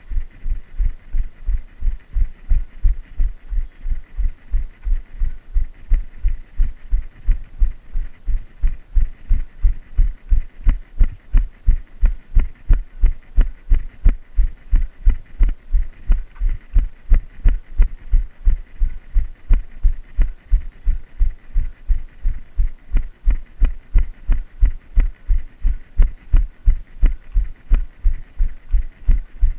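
A runner's footfalls thudding steadily at running pace, a low thump about three times a second, carried through a body-worn GoPro camera.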